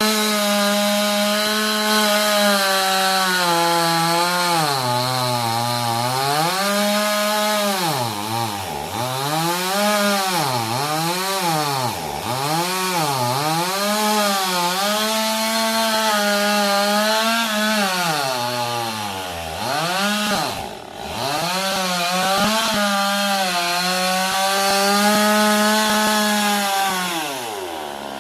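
Chainsaw cutting wood at full throttle. The engine pitch sags again and again as the chain bites and bogs under load, then recovers each time. Near the end it drops back toward idle.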